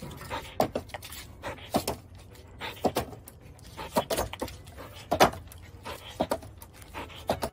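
A large dog leaping and scrambling about on a wooden deck: irregular knocks and clatters, two or three a second, from its paws landing on the boards, with some metallic jangling.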